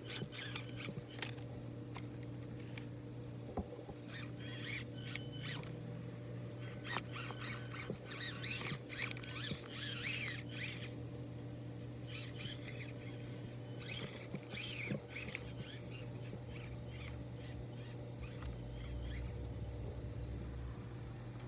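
Axial SCX24 1/24-scale RC crawler's small electric motor and gears whining in short, squeaky bursts as it crawls over rocks, over a steady low hum.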